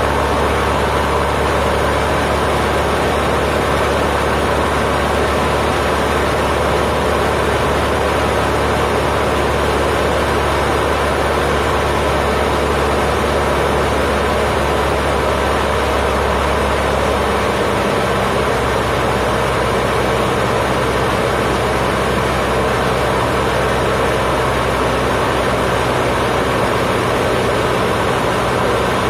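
Cessna 152's four-cylinder Lycoming engine and propeller droning steadily in cruise flight, heard inside the cockpit. The low note of the drone shifts about two-thirds of the way through, a change in engine power.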